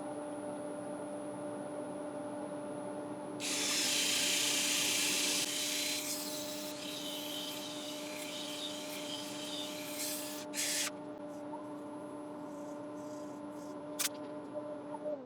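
Wood lathe running with a steady hum while sandpaper is held against the spinning black locust bowl: a loud rubbing hiss starts a few seconds in, then goes on more quietly for several seconds. At the very end the lathe is switched off and its hum falls in pitch as it spins down.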